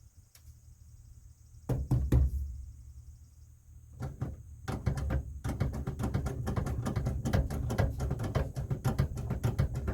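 Pickup truck door being handled: a couple of heavy knocks about two seconds in, then from about four seconds a dense run of clicks and rattling knocks over a low rumble.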